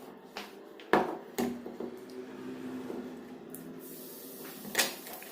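A few sharp knocks and clicks of hard plastic parts being handled as an aquarium air pump's valve unit is unscrewed and taken out, two close together about a second in and one more near the end.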